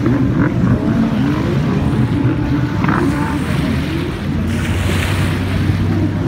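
Several racing runabout jet skis running hard, their engine pitches rising and falling as they race, with wind noise and choppy water over them.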